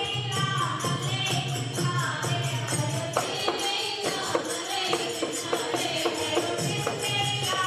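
Chowtal singing: a group of voices chanting a Phagwa song together, with jingling hand cymbals keeping a fast, even beat of about four to five strikes a second.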